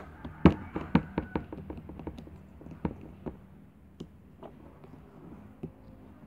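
Quick, irregular light taps and clicks as a highlighter tip is dabbed onto a small piece of slime on a plastic mat. They come thickly for the first three seconds, the loudest about half a second in, then thin out to a few scattered taps.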